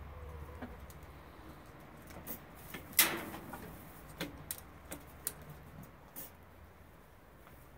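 Hens pecking feed from galvanized steel treadle feeders: irregular sharp taps and clicks of beaks and feeder parts on the metal, the loudest about three seconds in, over a low steady hum.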